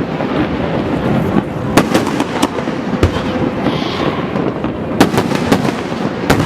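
Fireworks display: sharp bangs every second or so over a dense, continuous crackle of bursting shells.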